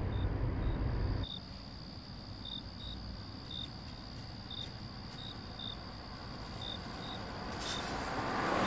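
Crickets chirping at night: short high chirps repeating irregularly about every half second over a steady high insect trill. A low car-cabin rumble cuts off about a second in, and a rush of noise swells near the end as a car approaches.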